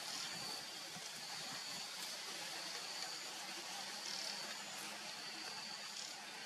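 Quiet outdoor ambience: a steady hiss with a constant high, thin insect-like whine that breaks off briefly now and then, and a few faint clicks.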